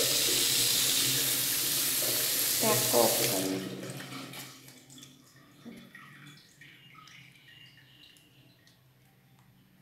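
Bathroom tap running into a washbasin, shut off about three and a half seconds in. Faint soft sounds of soapy hands rubbing together follow.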